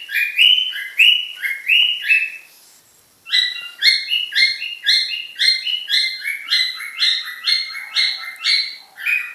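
Pet cockatiel calling over and over in quick, short repeated chirps that alternate between two pitches, with a brief pause after about two and a half seconds.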